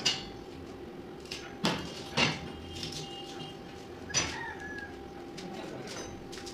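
Steel window grill frame knocking against a concrete floor as it is handled: four sharp metallic knocks, some with a short ring, over a steady hum.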